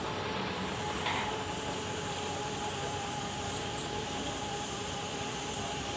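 Steady outdoor background noise with a faint steady hum, and a fast, regular high-pitched chirping that sets in about two seconds in; a brief higher sound comes about a second in.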